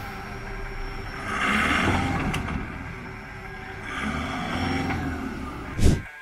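Toyota Hilux pickup's engine revving in two swells as it crawls over uneven ground, with a sudden loud thump just before the end.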